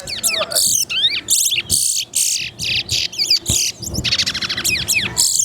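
Caged towa-towa (chestnut-bellied seed finch) singing: loud, rapid songs of quick whistled slurs and sweeping notes broken by buzzy trills, phrase after phrase with hardly a pause, as in a song-count contest.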